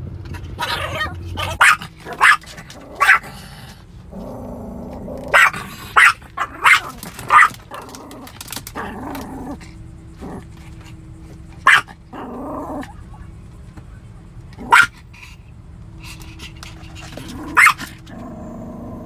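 Small terrier-type dog barking sharply in uneven bursts inside a closed car, with low growling between the barks.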